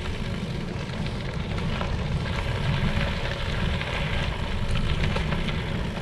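Wind buffeting a handlebar-mounted action camera's microphone as a bicycle rolls along a dirt road, with the tyres crackling over gravel.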